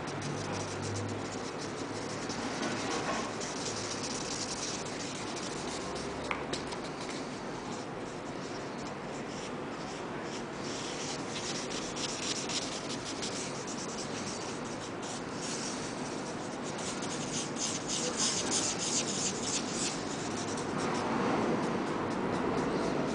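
A large black marker scribbling fast on paper: a continuous scratching rub of quick back-and-forth strokes, busier in the second half.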